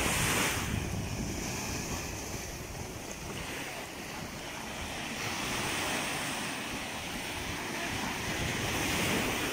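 Sea waves washing onto the shore, swelling near the start and again near the end, with wind buffeting the microphone.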